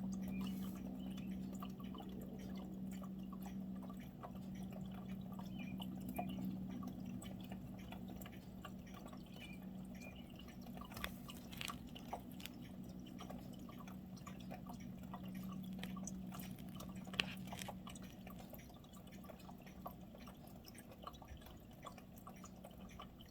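Distant AW109 Trekker twin-turbine helicopter flying away, its steady hum slowly fading out. Scattered faint clicks sound throughout.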